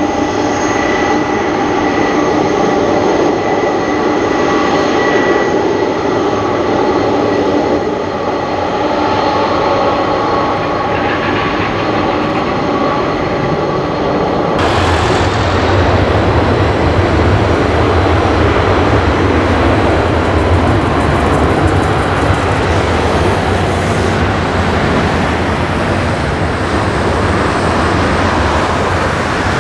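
McDonnell Douglas MD-11F trijet's turbofan engines whining steadily at taxi power, with several steady high tones over the jet noise. About halfway through the sound changes abruptly to a loud, broad roar with a deep rumble as the engines run at takeoff thrust for the takeoff roll.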